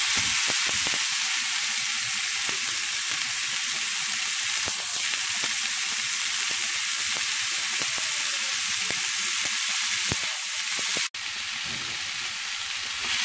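Diced bell peppers and onion sizzling in hot oil in a frying pan: a steady hiss with many small crackles. A wooden spatula stirs them briefly at the start, and the sound cuts out for an instant about eleven seconds in.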